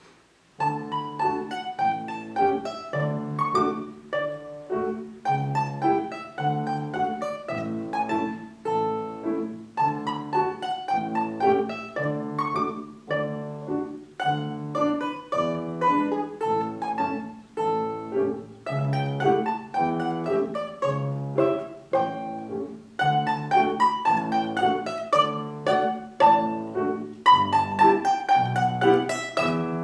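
Instrumental music: a plucked string instrument playing a tune of separately picked notes over lower notes, starting about half a second in.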